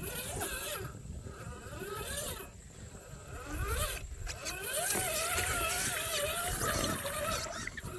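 Radio-controlled off-road car's electric motor whining, its pitch wavering up and down with the throttle, over a hiss of water splashing. The motor drops away briefly a couple of times and runs most steadily in the second half.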